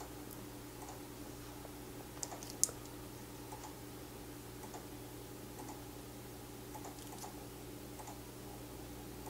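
Faint scattered small clicks and taps from a flux syringe and hands working on a keyboard circuit board, with two sharper clicks a little over two seconds in, over a steady low hum.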